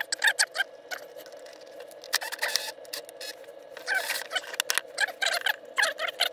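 A metal bracket being handled and fitted into a wooden box: irregular short clicks, knocks and scrapes of metal on wood, thickest about two and four seconds in.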